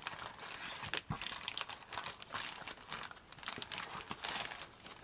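Sheets of craft paper and card being handled and shuffled, rustling and crinkling with irregular small crackles and clicks, one sharper click about a second in.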